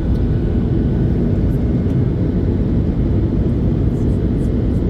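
Steady low rumble of an airliner in flight, its engine and air noise heard from inside the passenger cabin.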